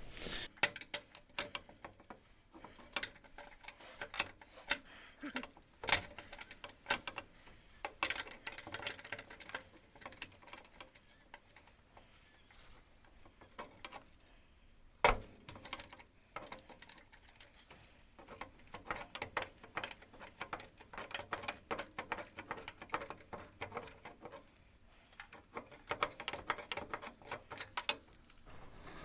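Ratchet wrench clicking as a socket works a bolt loose: scattered clicks at first, then fast runs of clicks in the second half, with a couple of louder knocks along the way.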